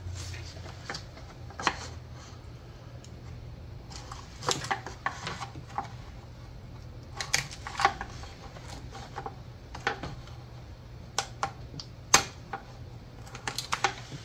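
Irregular sharp plastic clicks and small clatters as fuel injector connectors on a 3.6L Pentastar V6 are unclipped and pried off with grabber pliers.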